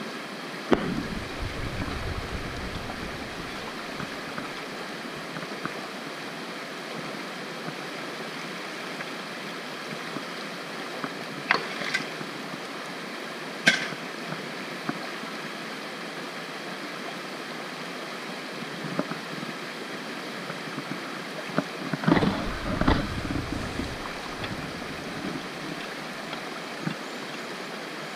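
Creek water running steadily over stones, with a few sharp knocks of rock and tool about twelve and fourteen seconds in. Two spells of low rumbling, near the start and again around twenty-two seconds in.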